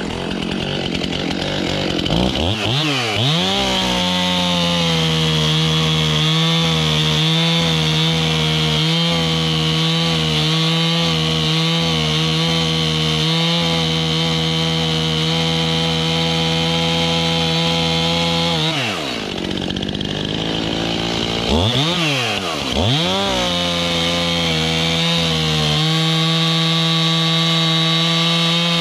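Two-stroke chainsaw revving up about two seconds in and held at steady high revs while cutting wood. It drops back near the middle, then revs up again and runs on steadily.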